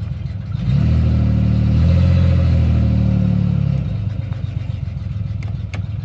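1989 Chevy Celebrity's 2.8 V6 revved in Drive against the brake: the engine note jumps up about a second in, holds for about three seconds, then drops back to idle. Off idle the misfire clears, and back at idle it runs rough again.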